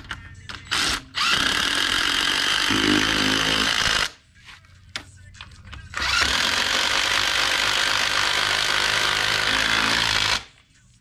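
Power tool running in two long bursts of about three and four seconds, each with a steady low whine under a dense noise, after a brief short burst near the start.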